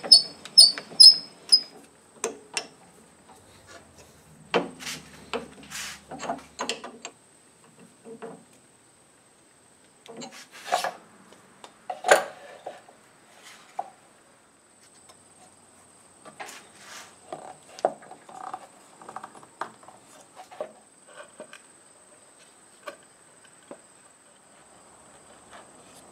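Handling sounds at a drill press with the motor off: scattered clicks, knocks and rubs of wood and metal as the press is adjusted and a wooden block is set on its table. It opens with a quick run of sharp high ticks, and the later knocks are softer.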